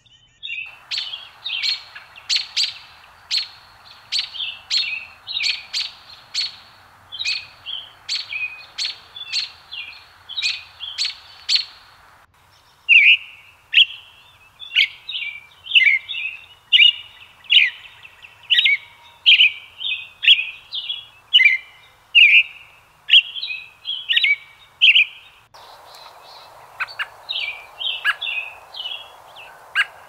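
American robin singing: a steady run of short, warbled whistled phrases, about two a second, loudest through the middle stretch.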